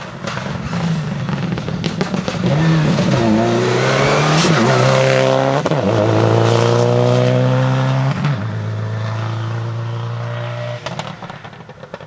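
Subaru Impreza rally car's flat-four engine driven hard past at close range. The revs climb and drop sharply at two gear changes, then hold high, and the engine fades as the car pulls away near the end.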